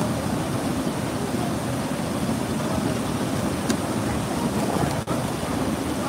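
River water pouring over a concrete dam spillway and churning in the pool below: a steady rush of white water, with a momentary dropout about five seconds in.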